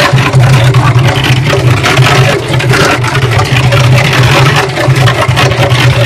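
Cement mixer running as a washing machine: its motor and drum drive give a steady hum while clothes and soapy water slosh and splash in the turning drum.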